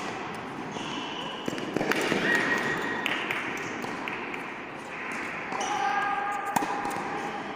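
Tennis ball bouncing and being struck on an indoor hard court: a few sharp, separate pops that echo around the large hall.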